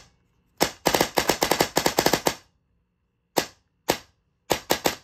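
Electric airsoft rifle with a dual-sector-gear (DSG) gearbox and SHS motor firing on semi-auto, since its DE MOSFET is not set up for full auto with a DSG: a fast run of about a dozen sharp shots starting under a second in, two single shots a little after the middle, then another fast string near the end.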